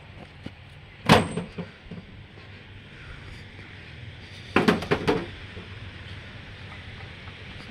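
A sharp knock about a second in, then a quick run of four or five knocks around the middle, over a steady low hum.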